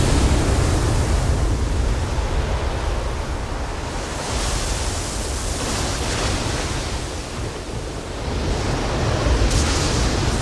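Ocean surf: a steady wash of waves and wind, with waves surging louder about four seconds in and again near the end.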